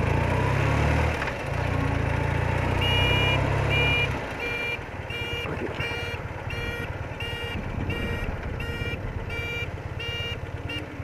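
BMW R80RT's flat-twin engine running, then easing off about four seconds in. From about three seconds in, an electronic beeper sounds about three times every two seconds.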